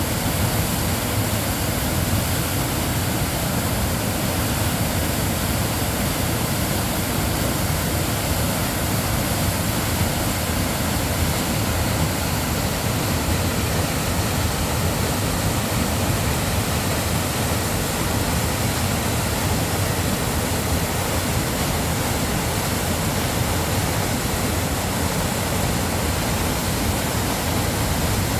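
Mountain waterfall: water falling and rushing in a steady, loud, unbroken roar.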